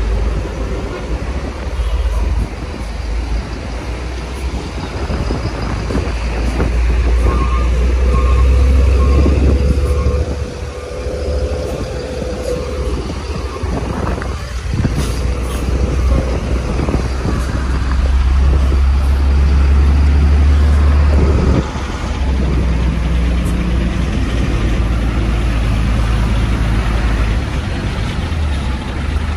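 Heavy diesel trucks and buses running in a ferry queue: a steady low engine rumble that swells louder a couple of times.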